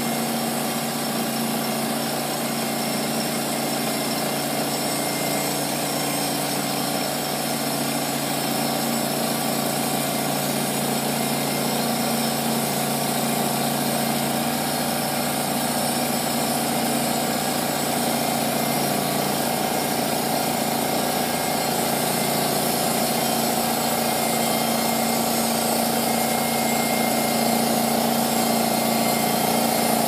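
The gas engine of a Norwood LumberMate Pro MX34 portable bandsaw mill runs at a steady speed while its blade cuts through a log. It gets slightly louder toward the end.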